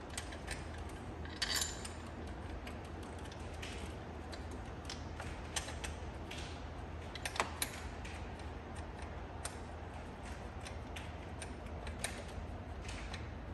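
Irregular light metallic clicks and taps of hand tools and bolts being handled, with no steady rhythm and a few louder clinks, over a steady low hum.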